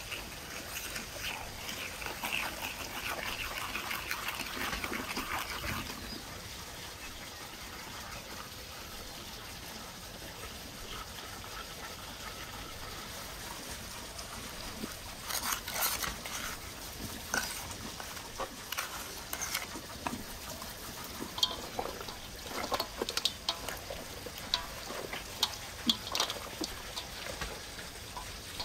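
A wooden spoon stirring oil and spices in a wooden bowl, a scraping swish for the first few seconds. After a quieter stretch, wet squelching and irregular smacks as marinade is poured over raw chickens and rubbed into them by hand.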